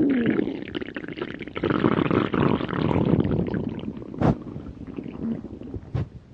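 A person's stomach growling: a long, uneven rumble that stays strong for about four seconds, then fades, with two short pops, one about four seconds in and one near the end.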